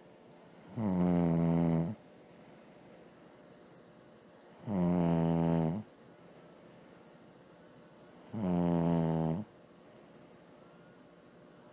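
Snoring: three long snores, each about a second long, coming evenly about four seconds apart.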